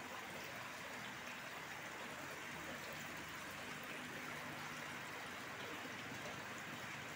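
Steady hiss of water running and trickling in a fish-farming tank of African catfish.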